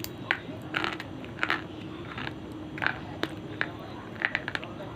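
Person biting and chewing pieces of slate pencil close to the microphone: about a dozen sharp, irregular crunches and cracks.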